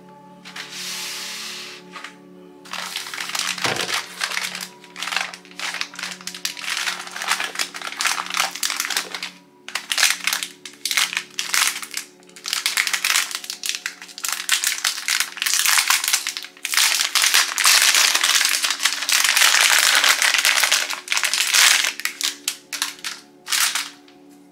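Plastic packaging crinkling and rustling in the hands as accessories are unwrapped from plastic bags and air-cushion wrap, in dense irregular bursts that are loudest in the second half, over soft background music.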